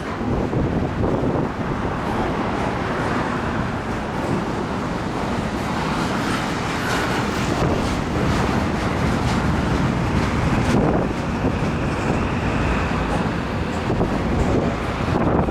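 CN intermodal freight train's cars rolling past in a steady rumble, with wind buffeting the microphone.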